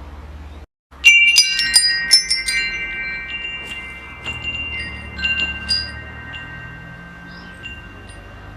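Wind chimes struck in a sudden cluster about a second in, right after a brief dropout, their high tones ringing on and slowly fading. A few more scattered strikes follow around the middle, over a low steady hum.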